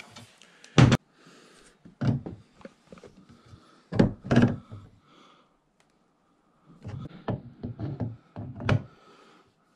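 Metal wrench and pliers knocking and clanking against a brass bathtub drain pipe while its slip nuts are tightened: a series of sharp knocks in bunches, the loudest about a second in.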